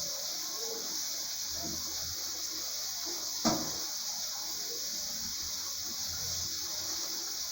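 Shower spray running steadily with an even hiss while a dog is washed, with one sharp knock about halfway through.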